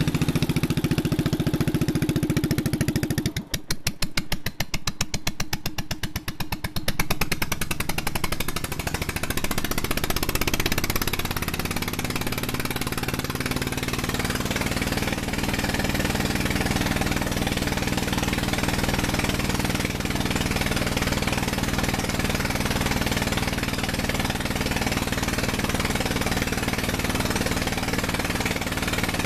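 1952 Wisconsin AHHD single-cylinder air-cooled engine running a Devilbiss four-cylinder two-stage compressor pump, charging the tank as the pressure gauge climbs. It is louder and noisier for the first three seconds. Then the engine's separate firing beats stand out for a few seconds before it settles into a steady, even run.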